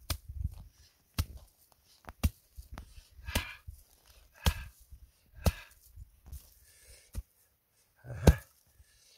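Mattock chopping into hard, stony ground about once a second, grubbing dry thorny shrubs out at the root. Some strokes carry a short rustle of brittle brush, and the loudest stroke comes near the end.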